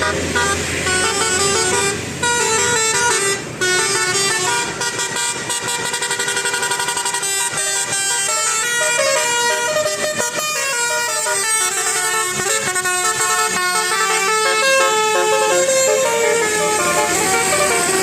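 A bus's Basuri 'telolet' multi-tone horn plays a melody of quickly stepping notes, with short breaks about two seconds and three and a half seconds in.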